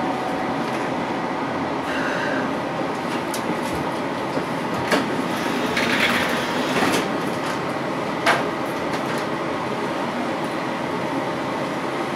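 Düsseldorf Stadtbahn light-rail car running along its track, heard from inside the passenger compartment: a steady rumble of wheels and motors, with a few sharp clacks as the wheels pass rail joints, the loudest about eight seconds in.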